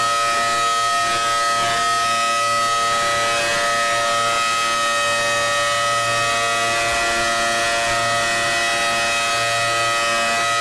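Emergency alert system alarm tone: several steady electronic tones sounding together as one unbroken chord, held at an even level.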